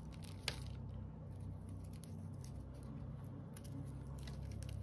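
Fingers handling a phalaenopsis orchid's tangled roots and the loose bark around them: faint rustling with a few small clicks, one sharper about half a second in and a few more near the end, over a low steady hum.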